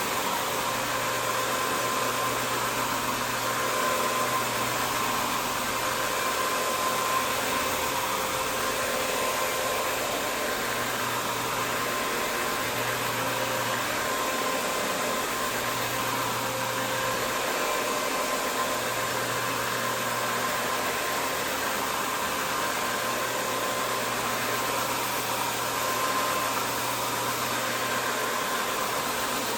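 A carpet cleaning machine runs steadily with a constant motor whine and a whoosh of moving air.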